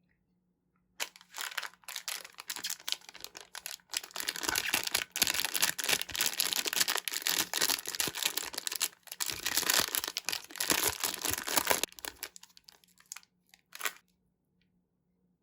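Crinkly plastic packaging of a surprise card packet being torn open and handled, a dense crackling rustle from about a second in to about twelve seconds, then one short crinkle near the end.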